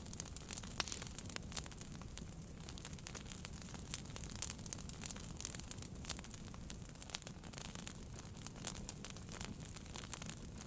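Wood fire burning in a fireplace, crackling with many irregular sharp pops and snaps over a steady low rumble of flame.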